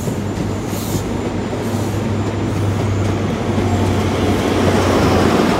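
Class 43 HST power car diesel engines working as the High Speed Train pulls out, over the rolling noise of the coaches. It grows louder toward the end.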